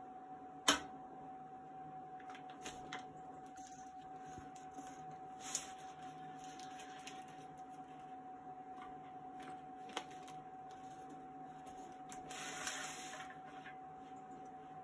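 Steady faint hum with a few sharp taps and a short scratchy rustle near the end: the sounds of a feed sack being handled, measured and marked by hand.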